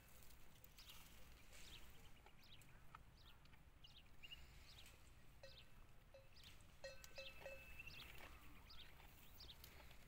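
Quiet outdoor ambience with frequent faint, short, falling chirps of small birds. A faint ringing tone sounds about seven seconds in, with a few soft ticks around it.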